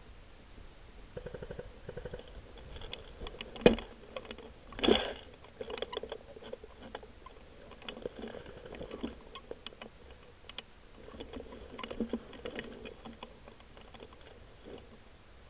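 Irregular crunching and rustling of dry leaves and handling noise around a rifle-mounted camera as the rifle is moved over the leaf-covered ground. There is a single sharp knock about three and a half seconds in and a louder crunch about five seconds in.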